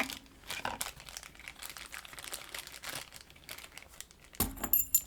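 Small metal lock parts being handled by hand, making scattered clicks and rattles, with a sharp metallic clink that rings briefly about four and a half seconds in.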